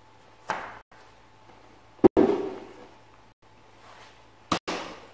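Three sudden knocks or bangs, about half a second, two seconds and four and a half seconds in; the middle one is the loudest and rings briefly after the hit.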